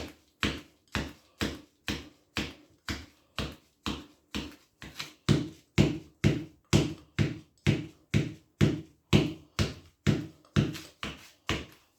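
Footsteps walking at a steady pace, about two steps a second, each step a sharp knock.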